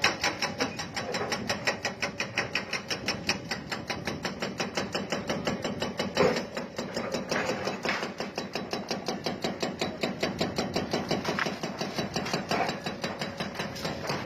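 Rapid, even mechanical hammering from demolition machinery, several blows a second, with one louder knock about six seconds in.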